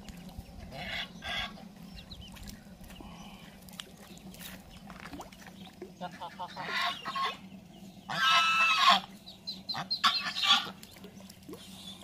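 White domestic geese honking several times, the longest and loudest call about eight seconds in, with a few shorter calls near the start.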